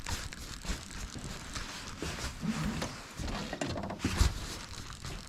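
Rustling, crackling handling noise and irregular steps as someone moves about searching on foot, with a heavier thump about four seconds in.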